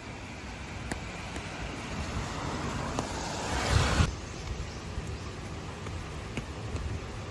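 Outdoor ambience with a steady low rumble like wind on the microphone and a few light ticks; a rushing noise swells to a peak about four seconds in and stops suddenly.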